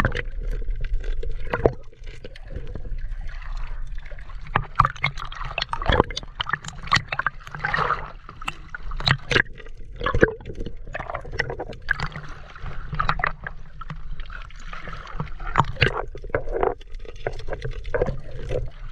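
Muffled underwater sound around a diver's camera: gurgling bubbles and water movement, with many sharp clicks and knocks over a steady low rumble.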